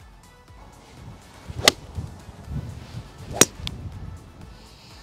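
Two crisp clicks of a golf club striking the ball off fairway grass, about a second and a half apart, with a low rumble between them.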